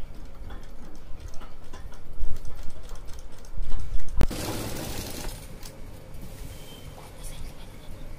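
Usha sewing machine stitching a seam through cotton fabric, with a sharp click about four seconds in followed by a brief rustle.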